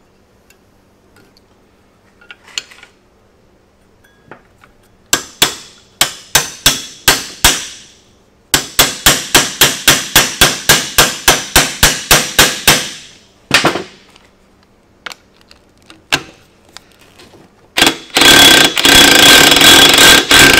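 A hammer strikes an extractor socket to drive it onto a rounded-off bolt head held in a vise: a handful of separate blows about five seconds in, then a fast run of about four blows a second. Near the end an impact wrench runs on the socket in long loud bursts, trying to break the badly rounded bolt loose.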